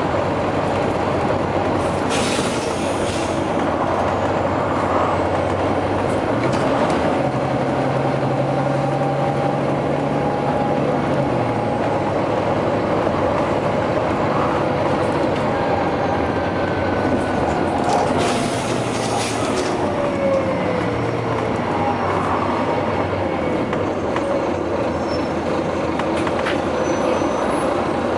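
Volvo B9TL double-decker bus on the move: its six-cylinder diesel labouring and changing pitch through several gear changes, with a whine from the driveline. Air hisses from the bus's air system twice, about two seconds in and again about eighteen seconds in.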